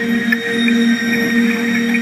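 Eerie drone of several steady, held tones, a low one and higher ones together, with a few faint clicks: the kind of sound put forward as a siren's song.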